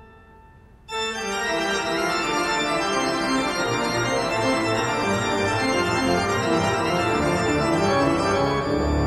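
Background organ music starts about a second in after a short lull, with quick-changing notes.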